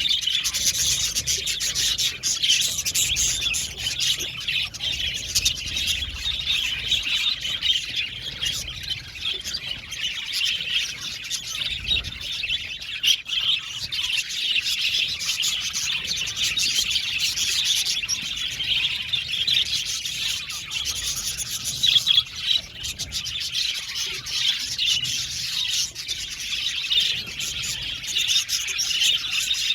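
A flock of budgerigars chirping and chattering continuously, many birds calling over one another.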